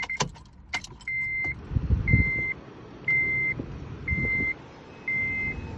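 Honda Civic's dashboard warning chime beeping evenly, five half-second beeps about once a second, with a few sharp key clicks at the start and low thumps of handling in between.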